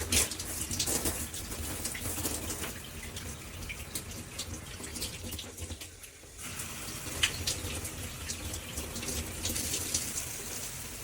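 Water spraying from a handheld shower head and splashing into a bathtub, a steady hiss with spattering, briefly weaker about six seconds in.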